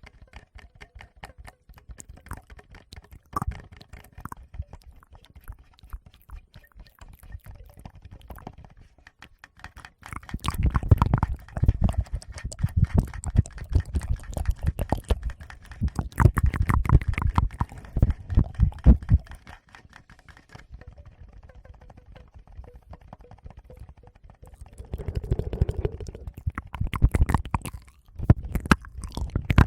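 Close-miked ASMR tapping and rubbing on a Tascam recorder's microphones: fast soft clicks throughout, with louder spells of deep thumps and scratches from about ten seconds in to nearly twenty seconds and again near the end.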